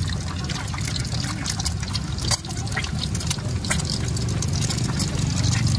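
Duck eggs frying in hot oil in a wok, sizzling with many sharp crackles and spatters, one sharper crack a little past two seconds in. A steady low hum runs underneath.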